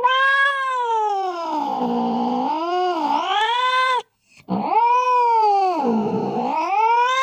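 A cat yowling in two long drawn-out calls, the second starting after a short break about four and a half seconds in. In each call the pitch sags in the middle and climbs again.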